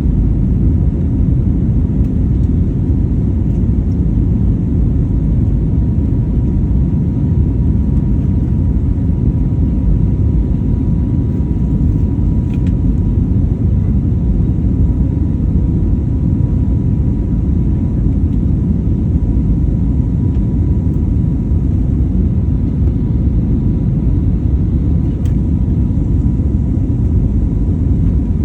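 Airplane engine and airflow noise: a steady, loud low rumble with a faint thin whine held on one pitch.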